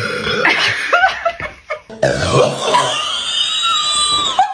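A person burps loudly after gulping Sprite, which fails the no-burp Sprite challenge. About two seconds in, a long, high-pitched, wavering sound follows.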